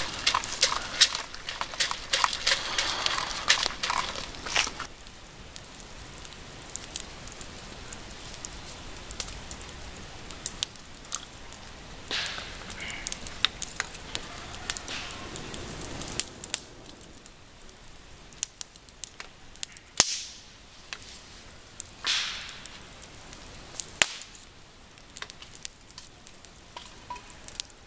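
Dogs eating dry kibble from bowls, a rapid crunching and clicking, for about the first five seconds. After that comes a small wood campfire crackling, with scattered sharp pops, a few of them louder.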